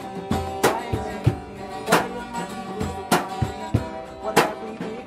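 Acoustic guitar strumming chords with a sharp percussive hit on the beat about every 0.6 seconds, the backing of a live rap song.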